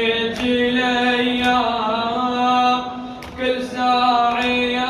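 A male reciter chanting a Shia nawha (lament) unaccompanied into a microphone, drawing out long held notes, with a short break about three seconds in.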